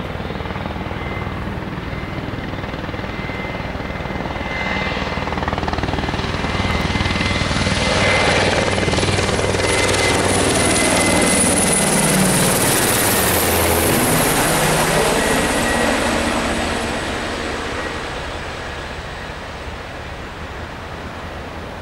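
Army helicopter passing low overhead: rotor and engine noise builds, is loudest about halfway through, drops in pitch as it goes over, then fades away.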